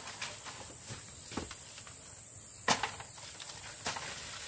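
Dry bamboo poles and leaf thatch cracking and knocking as an old shed roof is pulled apart: four sharp knocks about a second apart, the loudest a little past halfway. A steady high insect drone runs underneath.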